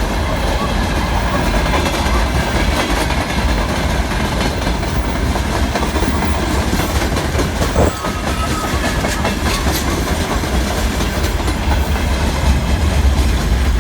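Freight train rolling past close by: a steady, loud rumble with the clickety-clack of its wagon wheels over the rail joints.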